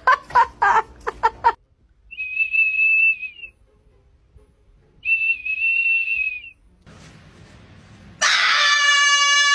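Golden retriever sounding a small plastic whistle held in its mouth: two steady, high whistle blasts of about a second and a half each, a couple of seconds apart. A few short vocal bursts come at the start, and a loud steady buzzy tone begins near the end.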